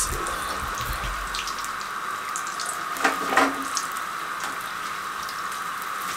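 Samosas deep-frying in hot ghee in a karahi: a steady sizzle, with a couple of light clinks about three seconds in.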